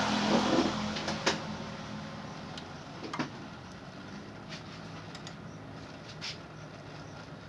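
A few sharp clicks and knocks, about one, three and six seconds in, over a faint steady hum. A louder rush of noise fades away in the first second.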